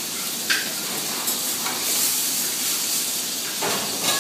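Steaks sizzling in frying pans on a gas range: a steady hiss, with a couple of brief sharp sounds about half a second in and near the end.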